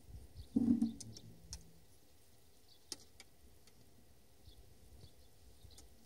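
Handling noise of an acoustic guitar being picked up and settled into playing position: a short cluster of low knocks and rustles about half a second in, then a few light clicks.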